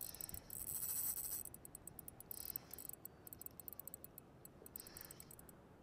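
Faint, fast ticking of a fishing reel as a hooked fish is played, densest for the first second and a half, then in scattered ticks.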